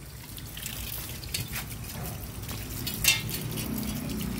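Water trickling from a garden hose over metal trash tongs and onto concrete, with a few short clicks of the tools being handled.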